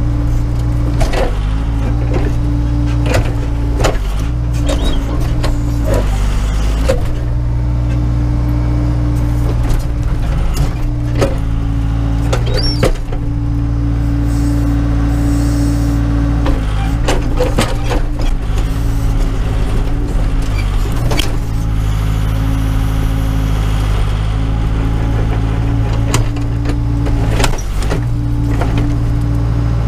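Case 580 Super K backhoe's four-cylinder diesel running steadily under the load of the hydraulics as the backhoe arm works, heard from inside the cab. Many short knocks and clunks come through as the bucket strikes and scrapes ice and frozen ground.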